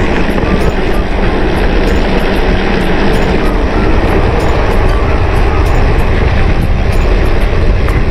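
Steady rumble of wind on the microphone and tyres rolling while a mountain bike is ridden, with many small ticks and rattles from the bike.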